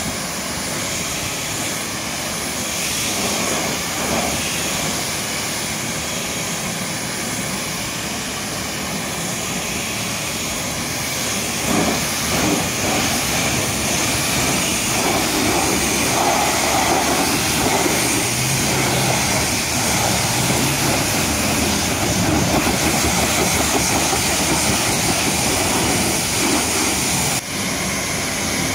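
High-pressure washer running, a steady hiss of spraying water, growing louder about twelve seconds in and dipping briefly near the end.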